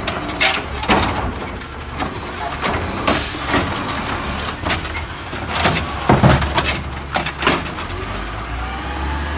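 Automated side-loader arm of a Peterbilt 320 garbage truck with an Amrep HX-450 body dumping a residential trash cart: a run of knocks and bangs as the cart is shaken over the hopper and trash drops in, over the steady running of the truck's natural-gas engine. The engine grows louder near the end as the arm returns the cart to the curb.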